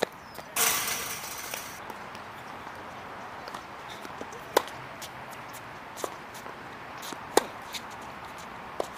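Tennis balls being struck by rackets and bouncing on the court: sharp, single pops, several about a second and a half apart in the second half. About half a second in there is a roughly one-second burst of hissing noise.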